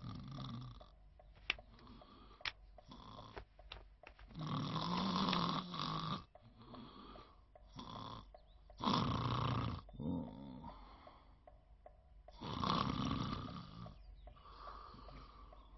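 A man snoring in his sleep: three long loud snores a few seconds apart, with quieter breaths between them. There are two sharp clicks about a second apart near the start.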